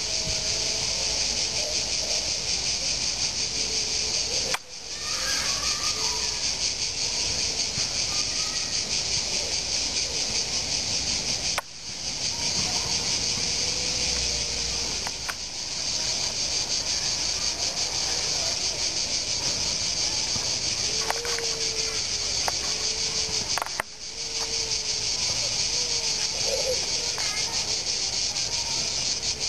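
A dense chorus of crickets shrilling, a continuous high-pitched buzz at a steady level. It drops out for a moment three times where the recording is cut.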